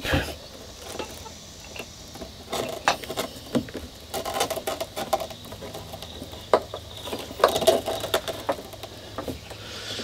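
Scattered light knocks, clicks and rustling of hands-on work inside a boat's console as a wiring harness is fed through a hole in the sideboard and its clamp.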